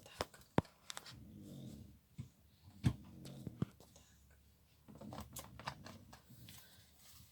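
Tarot cards being handled and laid out on a table: a scattering of sharp taps and card clicks, with a cluster of quicker ones about five to six and a half seconds in.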